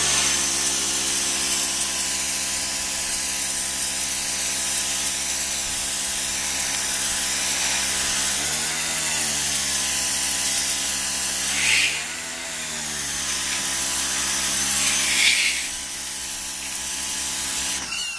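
Electric pressure washer running, its motor giving a steady hum under the hiss of the high-pressure spray hitting concrete. The motor's pitch sags and recovers twice around the middle.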